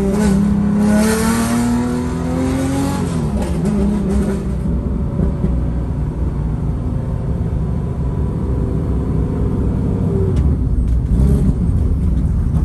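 Porsche 993's tuned 3.8-litre air-cooled flat-six heard from inside the car, pulling up through the revs with a rising note for about three seconds. The revs then fall away and it runs lighter at lower revs over road rumble.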